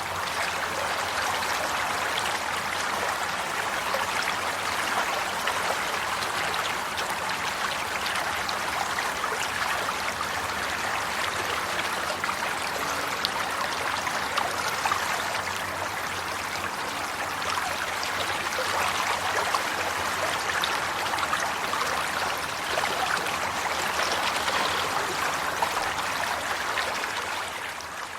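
A stream of water running steadily over stones, a continuous bubbling rush with many small splashes.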